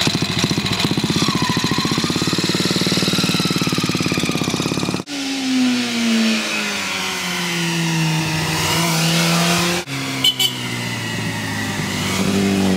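A 1953 Moto Guzzi Airone Turismo's single-cylinder engine runs with a steady, rapid beat. After a sudden cut, a sport motorcycle's engine note drops and then holds as it leans through a bend. After a second cut, another engine note climbs near the end.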